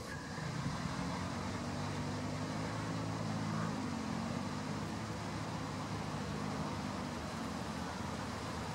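Steady road traffic noise, with the low drone of a vehicle engine strongest in the first few seconds.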